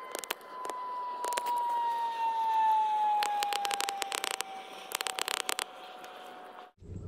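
Machete blade cutting and shaving a small piece of wood in short bursts of quick strokes, over a steady high whine that slowly slides lower in pitch. Both cut off suddenly near the end.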